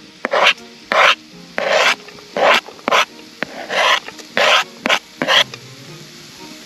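A cooking utensil scraping rhythmically as onion is worked in camp cooking: about a dozen short rasping strokes, roughly two a second, that stop about a second before the end.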